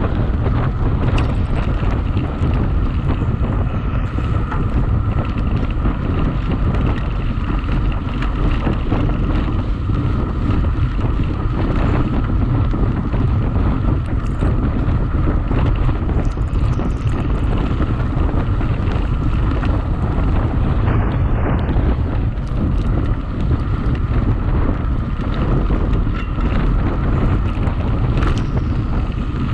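Loud, steady wind rush on the microphone of a camera riding along on a mountain bike at race speed, over the low rumble of the tyres on the track, with a few sharp knocks.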